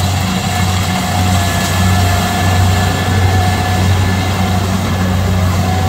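A Kubota DC70 rice combine harvester running hard while cutting rice: a steady, loud engine drone with a fainter whine from the machinery above it.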